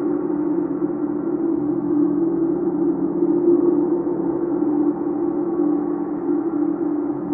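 Chau gong ringing in a continuous, sustained wash of overlapping tones, with no separate strikes heard, swelling slightly about halfway through.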